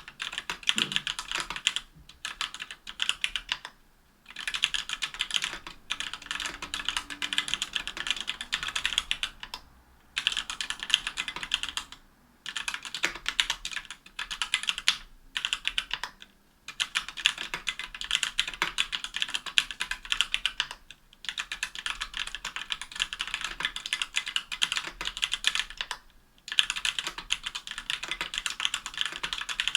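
Fast typing on a KBDfans Tofu60 aluminum keyboard with stock Everglide Amber Orange linear switches (45 g actuation) and GMK keycaps, a dense patter of key clacks in runs of a few seconds broken by short pauses.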